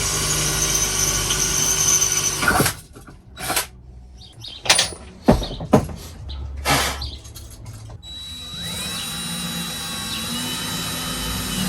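A power drill running for about two and a half seconds, then a few knocks and clicks, then running again more steadily near the end with a whine that rises in pitch.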